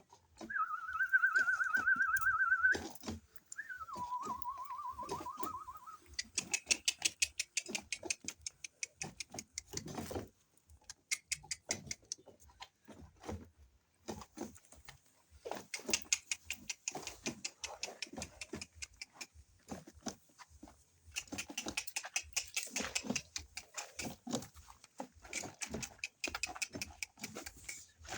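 A person whistling to domestic animals: two warbling whistles, the first higher, the second lower, a call meant to keep the animals calm while they are attended to. Then several few-second bursts of fast, evenly repeated short scratchy strokes.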